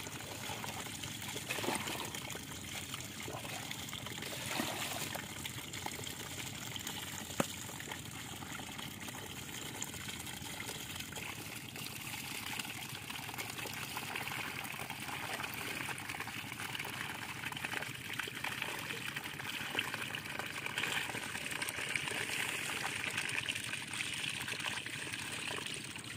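Muddy water trickling and pouring steadily through a narrow mud channel into a woven bamboo basket, carrying small fish with it; it grows a little stronger about halfway through. A few short knocks come in the first several seconds.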